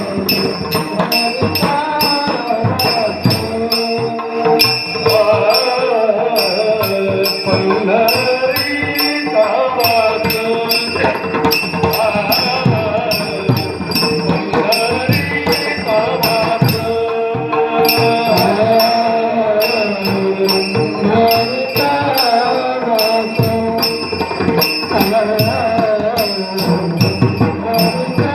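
Warkari kirtan music: a male kirtankar singing a devotional Warkari chal over a steady held drone. Small hand cymbals strike in regular groups, keeping a continuous rhythm.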